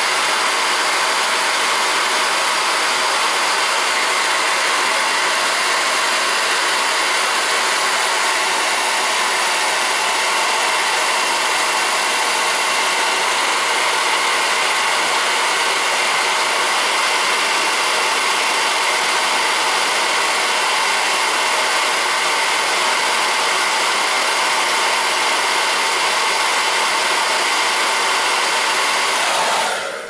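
Hand-held hair dryer running steadily: a constant rush of air with a faint steady motor whine, switched off near the end.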